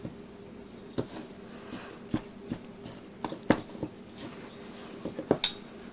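Wooden spoon stirring sticky bread dough in a stainless steel mixing bowl, with irregular knocks and scrapes of the spoon against the bowl; two knocks, about halfway through and near the end, are louder than the rest.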